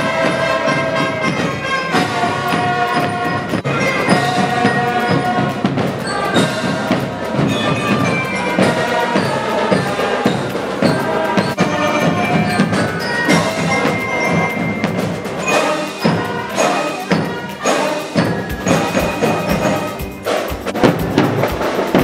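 Marching band playing: trumpets carry a melody in held notes over snare and bass drums. In the last few seconds the bass drum beats come to the fore.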